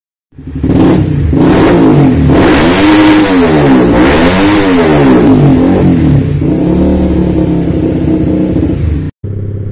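Motorcycle engine revving through a WRX GP5 R2 aftermarket muffler, 25 cm long with a half baffle. The throttle is blipped repeatedly so the pitch rises and falls, then it holds a steadier note from about six seconds in. Near the end it cuts abruptly to a quieter idle.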